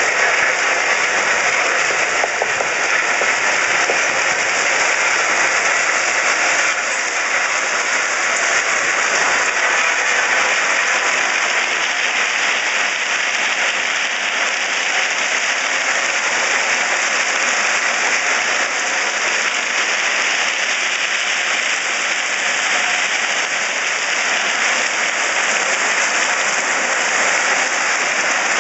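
Steel blade of a bi-directional ballast plow under a moving rail car pushing crushed-rock ballast along the track: a steady, dense rattle and hiss of stones tumbling and scraping over one another.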